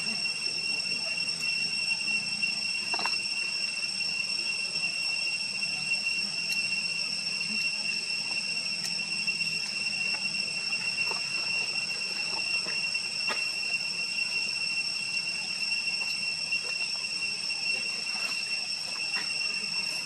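Insects droning, one steady high-pitched tone with a fainter higher one above it, unbroken throughout, with a few faint clicks.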